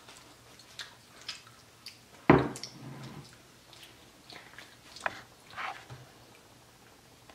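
Close-up chewing of soft chicken nuggets: scattered wet mouth clicks and smacks, with one loud thump about two seconds in.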